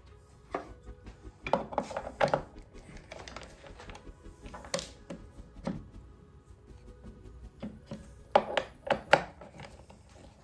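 Scattered metallic clicks and knocks as a hex wrench is worked against the router bit and into the height-adjustment hole of a router table's metal insert plate, setting the bit's cutting depth. There is a cluster of knocks about two seconds in and another near the end.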